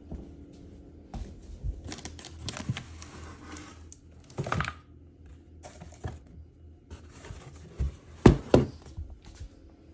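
Cardboard boxes rustling, scraping and knocking on a hardwood floor as a dog noses through them in a scent search, with two sharp thumps close together a little after eight seconds in.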